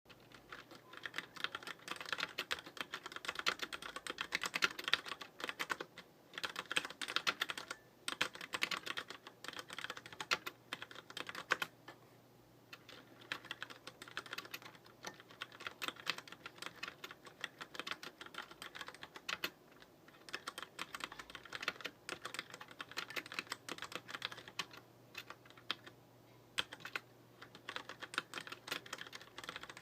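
Deck Francium Pro mechanical keyboard with brown tactile switches being typed on fast and hard: rapid, dense clatter of keystrokes, broken by a few short pauses.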